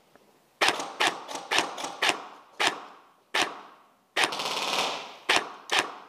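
Airsoft guns firing: a run of about a dozen sharp single shots, irregularly spaced, then a short rapid full-auto burst about four seconds in, followed by two more shots.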